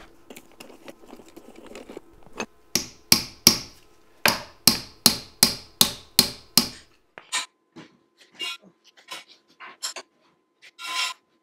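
A hammer drives a screwdriver against the wheel-bearing lock washer on a Dana 25 front hub, bending its tab up over the outer spindle nut. There are about a dozen sharp, ringing metal strikes at two or three a second, then a few lighter knocks near the end.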